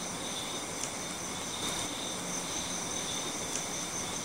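Crickets chirring steadily in an even, high-pitched drone.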